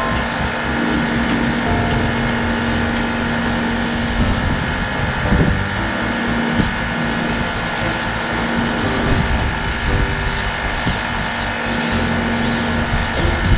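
Pressure washer running, its high-pressure jet hissing against a concrete slab over a steady pump hum. The hum drops out for about a second roughly four seconds in, then again near the end.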